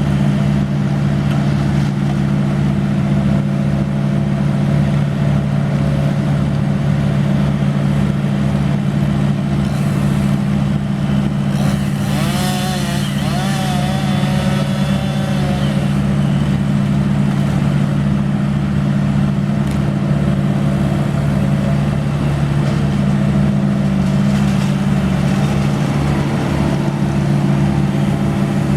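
A large engine on tree-removal equipment running steadily at constant speed, with an even low throb underneath.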